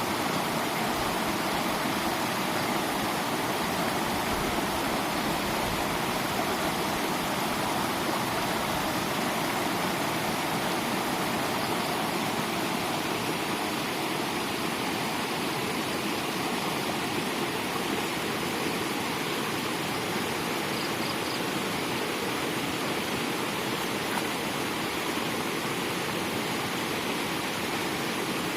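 Floodwater rushing steadily, an even unbroken hiss of flowing water.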